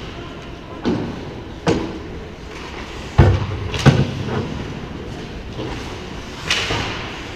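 Ice hockey play close to the goal: skates scraping on the ice over a steady rink noise, with about five sharp knocks and thuds of sticks and puck, the two loudest a little after three and about four seconds in.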